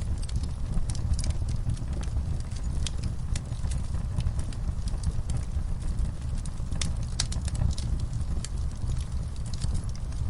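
Wood fire burning in a fireplace: a steady low rumble of the flames with irregular sharp crackles and pops throughout.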